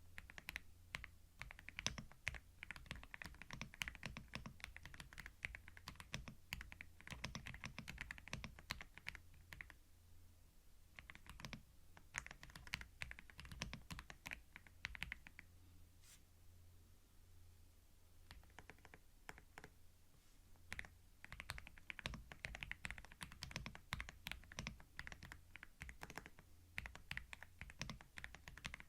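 Computer keyboard being typed on in quick runs of keystrokes, close up and binaural, with two short pauses, one about a third of the way through and one a little past halfway. A faint steady low hum runs underneath.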